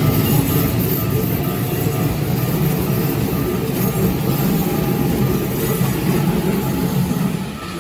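Keikyu Line electric train passing over a level crossing: steady running noise that drops off near the end as the train clears.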